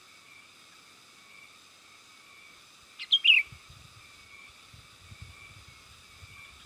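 Sooty-headed bulbul (kutilang) giving one short, loud burst of chirping calls about three seconds in, over a steady high-pitched background drone.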